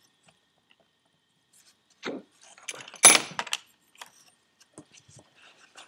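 Small metal turbocharger parts being handled: a light knock about two seconds in, then a brief clinking, jangling clatter with a bright metallic ring about a second later, then scattered faint ticks.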